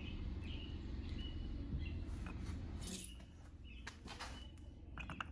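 Steel mower blade handled on a cone-type blade balancer: a few light metal clicks and knocks in the second half as it is shifted and lifted off. Under it a low steady hum that drops about halfway, and short high chirps in the first half.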